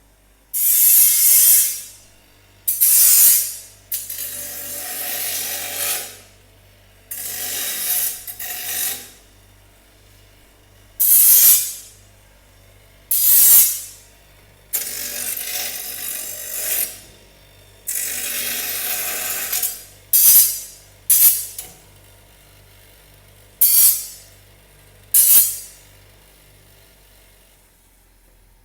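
Power tool cutting steel for a water tank cradle in about a dozen short bursts, each dying away within a second once the cut stops.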